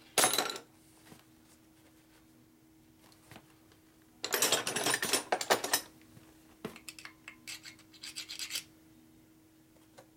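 Scraping and rubbing as old silicone sealant is cleaned off a metal motorcycle part with a screwdriver and rag. There is a short scrape just after the start, a longer rasping scrape about four seconds in, then a string of light scratches and clicks.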